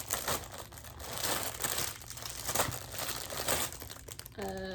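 Packaging crinkling and rustling as it is handled and torn open, many small crackles throughout. Near the end a held, hummed voice sound begins.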